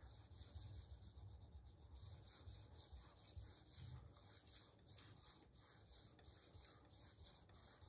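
A high-carbon steel Santoku knife blade is being stroked back and forth on a dry 100-micron diamond resin sharpening stone. Faint, quick, repeated scraping strokes as the blade is thinned near the tip, with no water on the stone.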